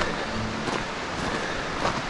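Footsteps on loose rock and gravel, a few irregular crunches, over a steady rushing noise.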